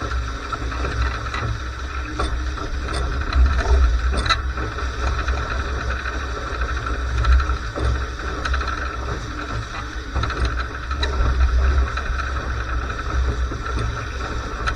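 Strong wind buffeting the microphone aboard a Laser 2 sailing dinghy: a steady, gusting rumble with a constant rushing hiss over it and scattered small ticks.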